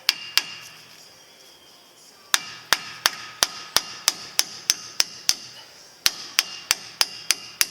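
Hammer blows ringing on steel suspension parts: two strikes, then two quick runs of about ten and six blows, roughly three a second, as the strut-to-knuckle bolts are driven out.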